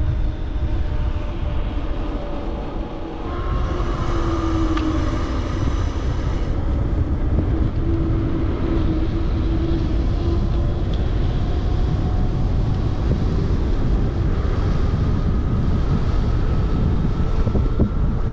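Wind buffeting a GoPro Hero 9's microphone while riding a bicycle at speed, with a faint steady hum running under the rush.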